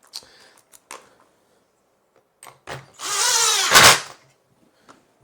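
A cordless drill-driver runs for about a second, its pitch shifting, as it drives or backs out a caster screw, ending in a sharp knock. A few light clicks of screws and caster parts being handled come before it.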